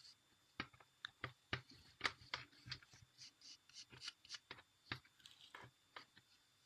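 Faint, irregular sticky clicks and squelches of wood-glue slime being stirred and worked after soda is added.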